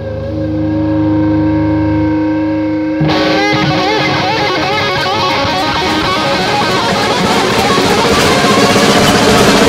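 Distorted electric guitar rock music. A steady held drone comes first, then about three seconds in a loud distorted guitar part kicks in with wavering, bent notes.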